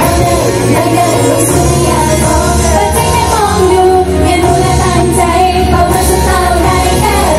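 Pop music with female voices singing a melody over loud accompaniment with a steady bass.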